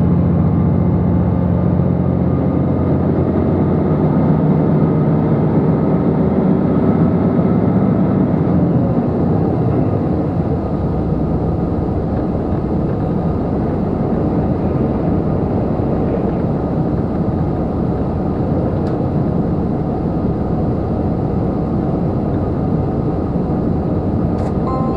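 Cabin running noise of a JR Shikoku 2700 series diesel-hydraulic express railcar at speed: steady wheel and rail noise under the diesel engine's hum. The engine's low drone fades about nine seconds in and the running noise carries on a little quieter.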